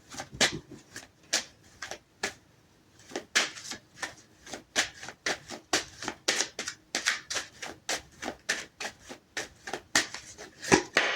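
A deck of tarot cards being shuffled by hand: a run of quick, light card snaps, about three to four a second, with a short pause a little over two seconds in.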